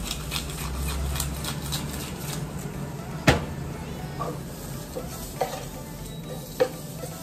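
Prawns and garlic sizzling in a frying pan, with the quick ticking of a hand-twisted spice grinder in the first couple of seconds and a single sharp knock about three seconds in. Near the end a wooden spatula knocks and scrapes in the pan as the prawns are stirred.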